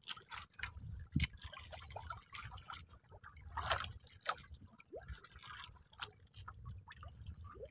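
Faint sea water lapping and dripping against a small wooden boat's hull: scattered small splashes and clicks over a low wash.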